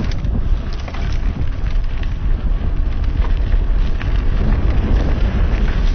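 Mountain bike being ridden on a dirt trail: steady wind rumble on the helmet camera's microphone, with frequent short clicks and rattles from the tyres on gravel and the bike over rough ground.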